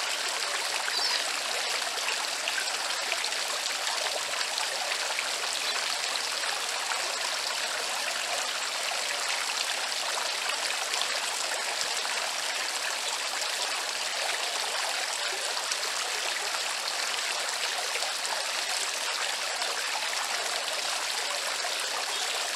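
Garden fountain running: water pouring from the spout into the stone basin and spilling over its rim in a steady splashing trickle.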